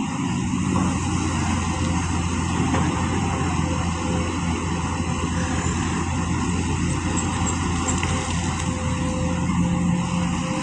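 Diesel engine of heavy construction machinery running steadily, a constant low drone with no change in speed.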